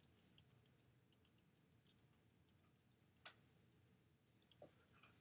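Faint clicking at a computer: a quick run of short clicks over the first two seconds, then a few scattered single clicks, over near-silent room tone.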